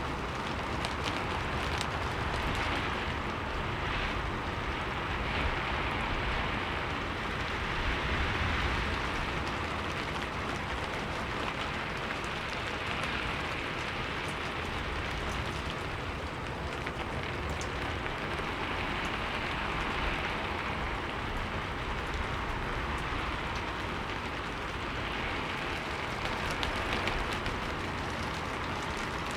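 Steady rain: an even hiss with a fine patter of drops, swelling and easing gently every few seconds.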